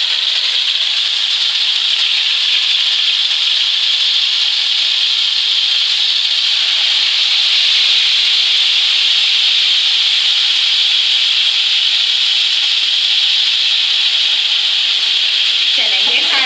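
Chicken steaks sizzling steadily in hot oil in a frying pan.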